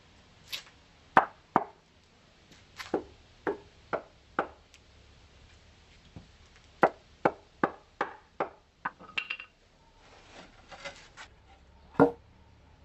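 A series of sharp knocks from hand tools striking hard material during masonry work, coming in two runs of about two a second, with brief scraping and one louder knock near the end.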